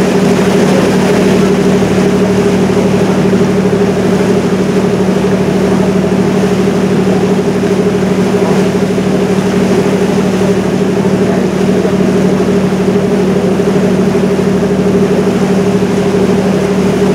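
River cruise boat's engine running steadily, heard on board: an unchanging low hum over a rushing wash.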